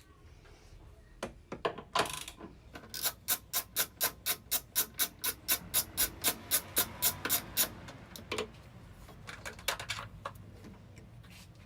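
Ratchet wrench clicking steadily, about five clicks a second for several seconds, as it backs off the 12 mm nuts holding the airbox. A few single knocks come before and after the clicking.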